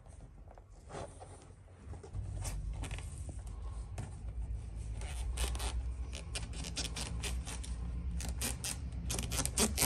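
Handling noise of a gear gaiter being worked down over a gear lever: rubbing and scraping with scattered sharp clicks, more of them in the second half. A low steady hum comes in about two seconds in.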